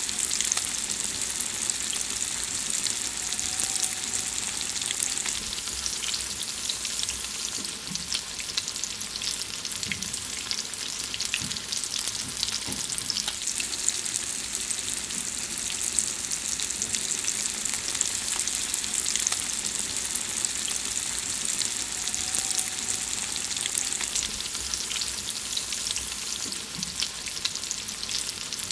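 Food frying in hot fat: a steady sizzle with many small crackling pops.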